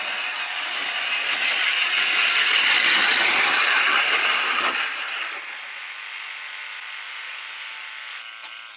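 Model train passing over the track with a rattling running noise. It builds to a peak about three seconds in, eases off about two seconds later, carries on at a lower level and cuts off suddenly near the end.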